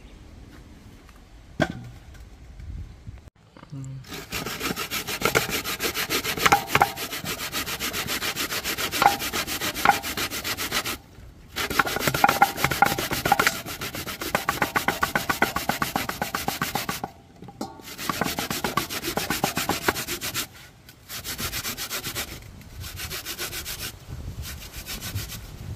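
Fresh coconut meat grated by hand on a punched-metal grater with a wooden frame, standing in a steel bowl: rapid rasping strokes that begin about four seconds in and come in runs broken by short pauses. A single knock comes shortly before the grating starts.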